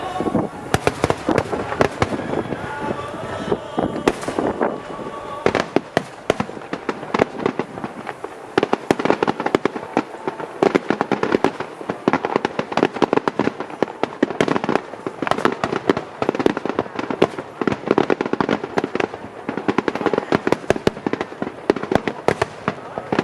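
Fireworks going off in a rapid, dense barrage of many overlapping sharp bangs, growing even thicker after several seconds.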